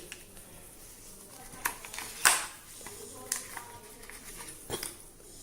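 A few light clicks and taps, about four spread over several seconds with the loudest a little past two seconds in, from handling the opened plastic video doorbell housing and its batteries.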